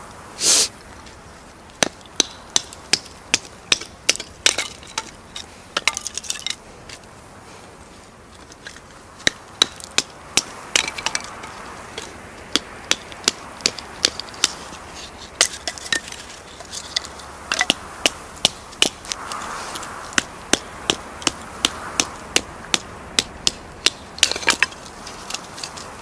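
A wooden baton knocking on the spine of a knife to split kindling: sharp wooden knocks, often about two a second with short pauses between runs, and the crack of the sticks splitting apart.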